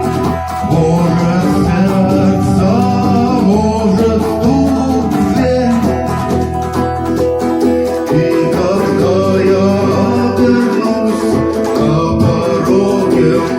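Music from a guitar-led song cover, with no lyrics sung in this stretch.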